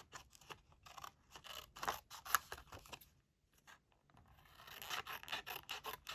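Small scissors snipping through a photo print in a series of short, quick cuts, with a pause a little past halfway before the cutting resumes.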